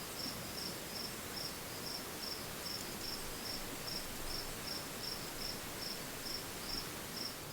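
A cricket chirping in a steady rhythm, about two to three short high chirps a second, over a soft outdoor hiss.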